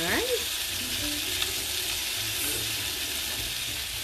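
Stuffed chicken roulades searing in duck fat and butter in a skillet, a steady sizzle throughout.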